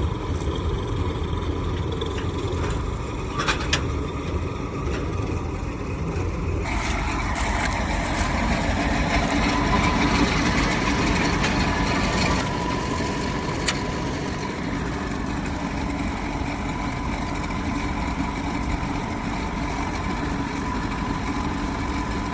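Dasmesh 7100 combine harvester's engine running steadily with a constant whine. About seven seconds in, the sound turns fuller and higher-pitched for several seconds, then eases back, with a couple of sharp clicks along the way.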